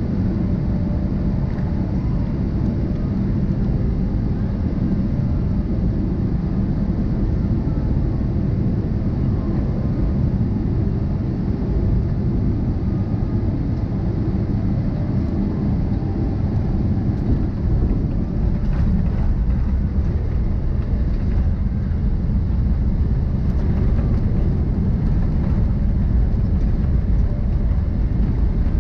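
Jet airliner cabin noise over the wing on final approach and landing: a steady low rumble of engines and airflow. It grows louder over the last few seconds as the plane touches down, with the spoilers raised and the thrust reversers opening near the end.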